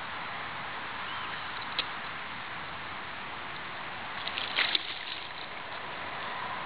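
River water rushing and lapping against a boat, with a single sharp click about two seconds in and a brief cluster of louder sharp sounds about four and a half seconds in.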